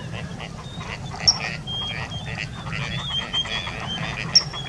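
Waterfowl calling: a run of short, repeated quacking calls mixed with brief warbled notes. Two sharp high chirps come about three seconds apart, over a steady low rumble.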